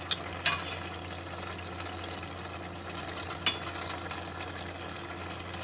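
Kimchi stew simmering in a stainless steel pot, a steady bubbling hiss over a low hum, while pork belly is cut in the pot with kitchen scissors and tongs. Three sharp metal clicks from the scissors and tongs, two near the start and one about three and a half seconds in.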